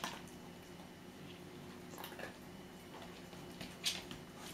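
Mostly quiet, with a few faint taps and scuffs from a pumi's paws and claws as the dog moves on the floor, around two seconds in and again just before the end.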